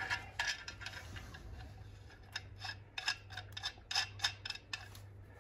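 Light metallic clicks and ticks from a small metal fitting being threaded by hand into the port of an air-suspension tank, coming about three or four a second from around two seconds in, over a steady low hum.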